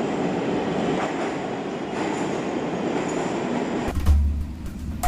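Metro train carriage running, a steady rumble and rattle of wheels on rails. About four seconds in it cuts abruptly to drumming: sharp hits over a deep bass.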